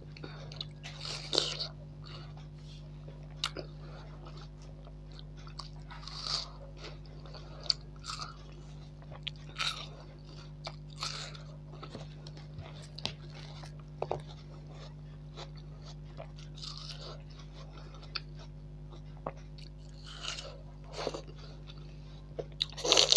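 Watermelon being bitten and chewed close to the microphone: irregular wet crunching bites and chewing clicks, the loudest just before the end, over a steady low hum.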